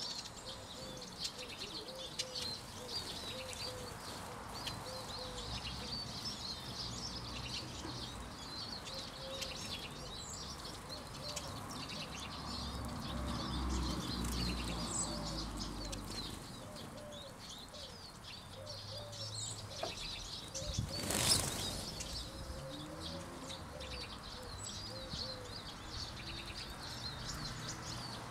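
Small flock of Eurasian siskins twittering continuously at a bird feeder, with wingbeats as birds fly in and out. A brief loud rush of noise comes about two-thirds of the way through.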